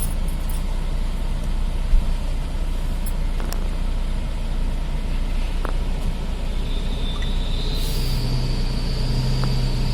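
Logging truck's engine running steadily. A single knock comes about two seconds in. A thin high whine comes in after six seconds, and a deeper steady hum joins it about eight seconds in.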